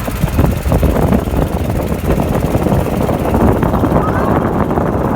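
Small tour boat's engine running steadily while under way, with a dense rushing noise.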